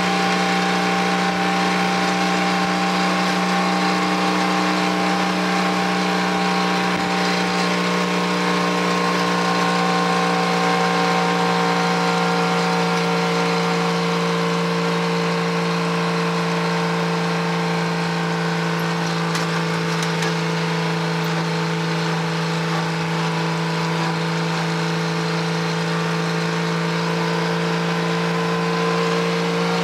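White 4000 truck's engine running steadily at road speed, heard from inside the cab, its hum drifting gently up and down in pitch as the speed changes.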